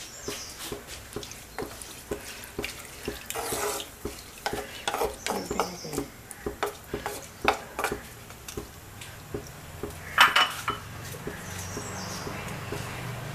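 Wooden spatula stirring clams in a little water in a clay pot: irregular knocks, clicks and scrapes of wood and shells against the pot, with a couple of louder scrapes.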